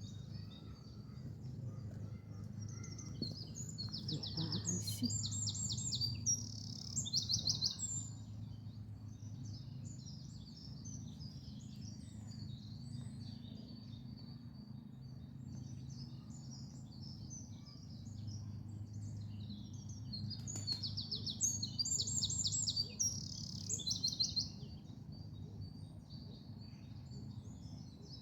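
Songbirds singing and chirping, one bird twice delivering the same short song of fast, trilled notes. A steady low background rumble runs underneath.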